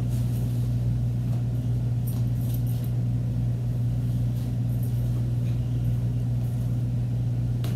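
A steady low hum throughout, with a few faint soft rustles of a cotton shirt being handled and unfolded.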